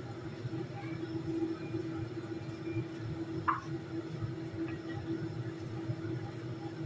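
A steady low hum runs throughout, with faint scraping as a potato is peeled with a hand peeler, and one brief high squeak about halfway through.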